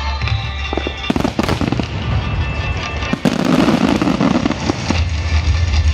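Fireworks shells bursting: a quick run of sharp bangs about a second in, then a louder bang just after three seconds followed by a rumbling spread of bursts. Music with a heavy bass plays underneath.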